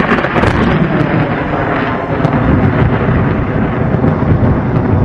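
Thunderstorm sound effect: loud, continuous rolling thunder.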